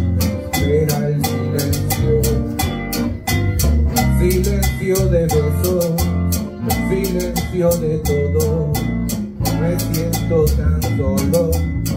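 Live Latin band playing an instrumental passage: congas and timbales keep a steady, busy rhythm under a guitar, with a melodic line weaving above.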